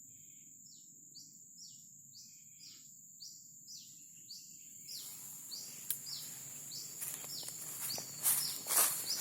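A bird calling in a string of short, quickly falling chirps, about two to three a second, over a steady high insect whine. From about halfway, rustling and crunching footsteps through dry leaf litter come in and grow louder, with the loudest crunches near the end.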